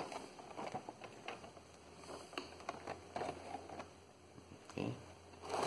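Handling noise from a Hot Wheels five-pack's plastic blister card being moved and stood up on a table: small scattered clicks and light crinkles, with a louder rustle near the end.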